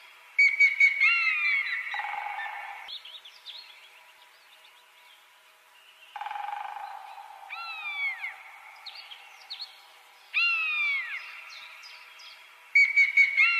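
Bird-like calls: high whistled chirps that fall in pitch, in groups about half a second, six seconds and ten seconds in, over a thin steady hiss.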